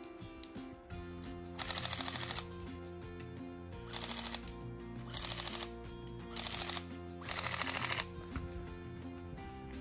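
Airsoft rifle firing five short full-auto bursts of rapid clicking shots, the longest near the end, over background music.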